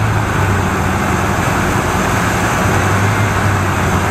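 Chevrolet 305 V8 with a Rochester Quadrajet carburetor idling steadily, heard close up under the open hood.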